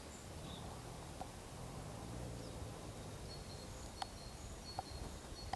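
Faint outdoor ambience with short, high bird chirps scattered through it and a few small clicks.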